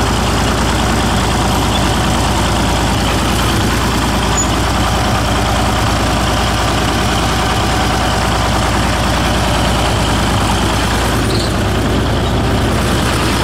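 Old six-cylinder diesel tractor engine running steadily and smoothly as the tractor is driven slowly.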